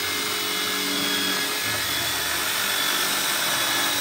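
A corded electric hand tool running steadily under load, its bit grinding into a round metal motorcycle engine part with a dense, even hiss.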